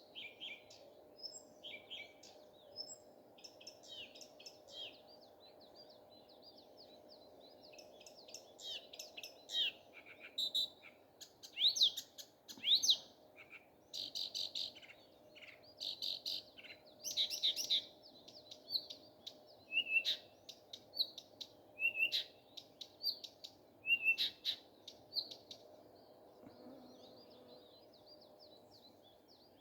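Nightingale singing: varied phrases of whistles, trills and rapid rattles, loudest and densest in the middle, then short separate notes repeated about every two seconds. A faint steady hum runs underneath.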